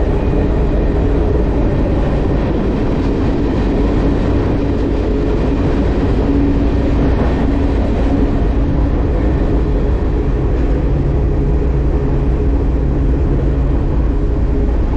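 Freight train running: a loud, steady rumble that carries on without a break.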